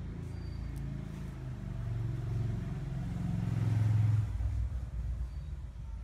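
Engine of a motor vehicle passing by, its low hum growing louder to a peak about four seconds in and then fading.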